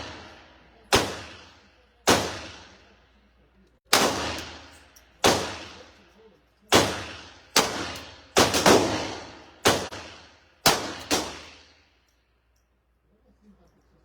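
Pistol fired about a dozen times at uneven intervals, some shots close together, each crack followed by a reverberant echo tail; the shooting stops about 11 seconds in.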